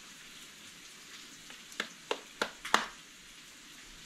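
Faint steady sizzle of food frying in a pan, with a quick run of four or five sharp mouth clicks from chewing a bite of cooked kohlrabi a little under two seconds in.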